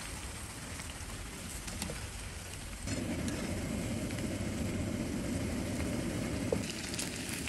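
Vegetable spring roll pieces deep-frying in hot oil in a kadai, a steady sizzle with small crackles. The sizzle gets fuller and louder about three seconds in.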